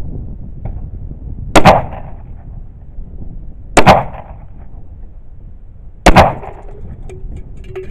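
Three shots from a Glock 9mm pistol, about two seconds apart, each a sharp crack that doubles quickly and rings out briefly.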